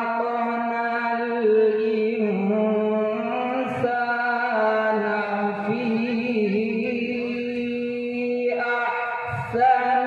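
A man's voice reciting the Quran in melodic qirat style, drawing out long ornamented notes, with a short break for breath about nine and a half seconds in.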